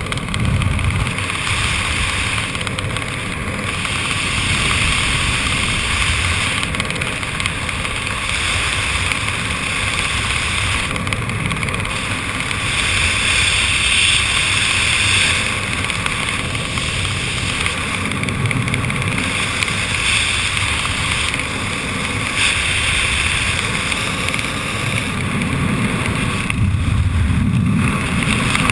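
Airflow buffeting the camera's microphone during descent under an open parachute canopy: a steady rushing hiss over a low rumble that swells and eases every few seconds.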